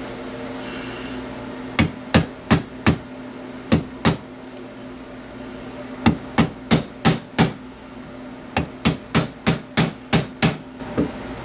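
Hammer tapping a pin punch to start the Saiga 12's original retaining pin into the magazine release, in short bursts of sharp taps, about three a second, beginning about two seconds in. A steady low hum runs underneath.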